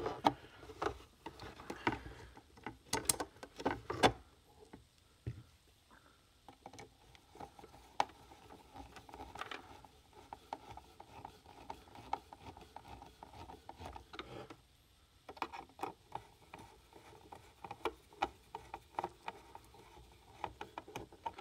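Screwdriver work on the plastic case of a fence charger: irregular clicks, taps and scraping as a small screw is started and turned. The sharpest clicks come in the first few seconds and again near the end.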